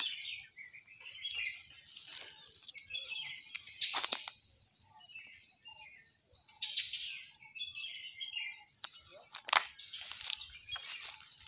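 Birds chirping in short runs over a steady high-pitched insect drone, with a couple of sharp clicks.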